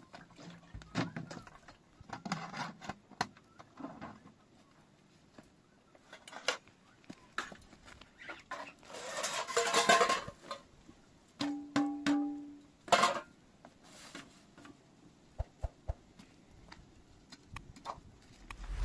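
Scattered clunks and clinks of plastic jerrycans and metal dishes being handled, with water splashing from a metal pitcher for a second or so about nine seconds in.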